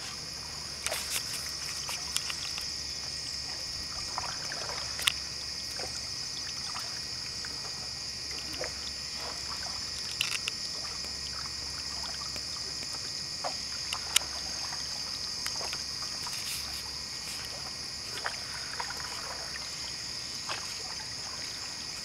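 A canoe being paddled through still floodwater: soft paddle strokes and drips, with a few sharp knocks of the paddle against the hull, over a steady high-pitched chorus of insects.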